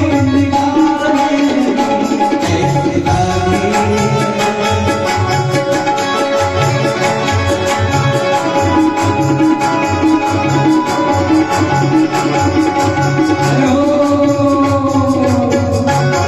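Bhajan music: a tabla keeps a steady, even rhythm under a sustained melody line, with light regular high ticks running along with the beat.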